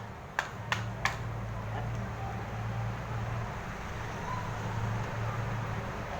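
Three sharp clicks about a third of a second apart in the first second as the opened M16A1 rifle is handled, followed by a steady low hum lasting most of the rest.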